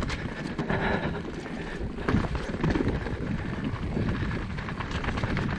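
Mountain bike ridden over wet roots and mud, heard from its action camera: a constant run of knocks and rattles from the bike over the bumps, loudest about two seconds in, with wind buffeting the microphone.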